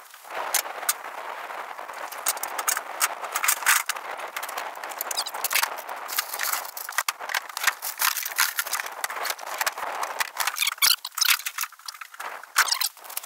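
Irregular clatter, knocks and rustling of gear and a deer carcass being loaded into a pickup truck bed, over a steady background hiss.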